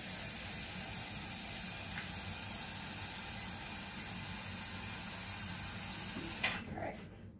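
Kitchen tap running steadily, filling a measuring cup with water, then shut off about six and a half seconds in.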